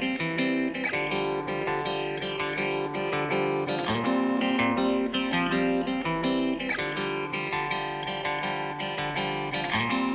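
Background music led by guitar, with steady strummed and plucked chords.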